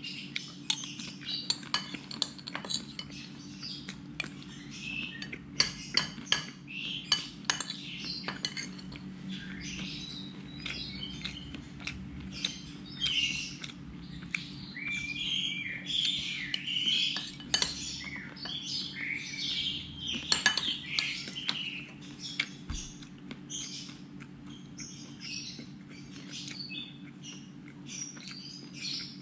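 Birds chirping in short repeated calls, mixed with frequent clinks of metal utensils against dishes, over a steady low hum.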